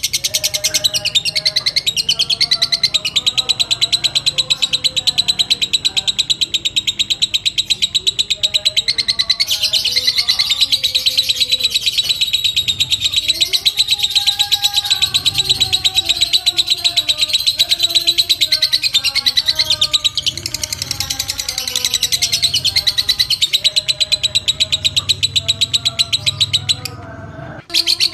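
Lovebird giving its long 'ngekek' call: a continuous, very rapid, shrill chattering trill, with one brief break about a second before the end.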